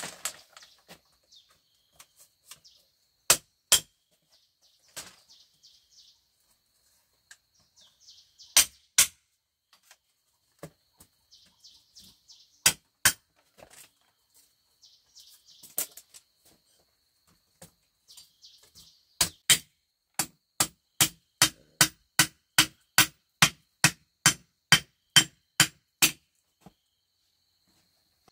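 Sharp knocks of a tool striking bamboo. They come in spaced pairs at first, then in a quick, even run of about two and a half strikes a second in the last third. Crickets chirp faintly underneath.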